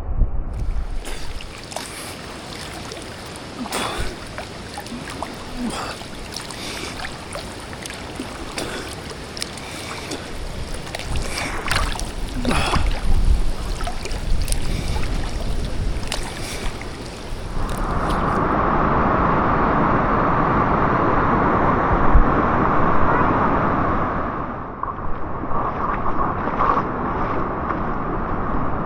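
Running stream water with scattered knocks and splashes. About two-thirds of the way in it changes suddenly to a steadier, louder rush of water.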